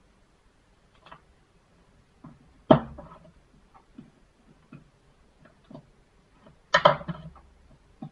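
Small clicks and taps of plastic and metal parts of a BlackBerry Bold 9790 being pried and picked at with a thin pry tool and tweezers. Two louder handling clatters come about three seconds in and again about seven seconds in.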